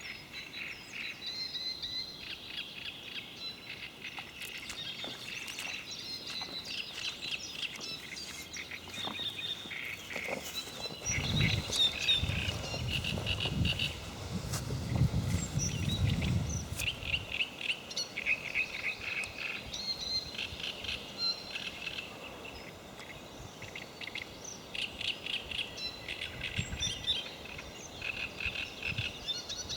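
Songbirds singing and chirping all through, in quick repeated trills. A low rumble lasts about six seconds near the middle.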